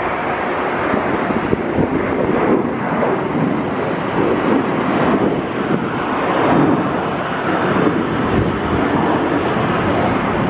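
Airbus A300-600R freighter's twin Pratt & Whitney PW4158 turbofans at takeoff thrust during the initial climb: loud, steady jet noise that swells and wavers.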